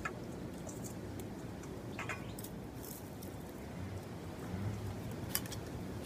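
A few short, faint clicks of a metal spoon against a ceramic bowl over steady background noise: one at the start, one about two seconds in and one after five seconds.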